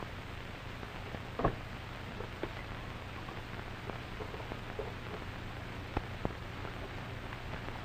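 Steady hiss and crackle of an old film soundtrack, with a low steady hum under it and a few faint clicks.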